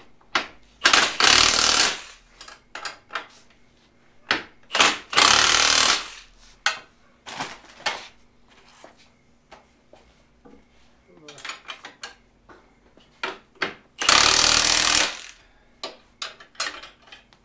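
Cordless impact wrench run in three bursts of about a second each, near the start, about five seconds in and near the end, spinning nuts down onto bolts. Short clinks and knocks of bolts and tools being handled come in between.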